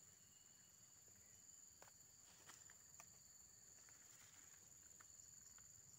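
Near silence: a faint, steady, high insect drone, likely crickets, with a few faint ticks.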